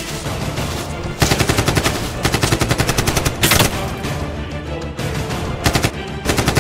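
Bursts of rapid automatic gunfire over background music: a long burst starting about a second in, then a shorter one near the end.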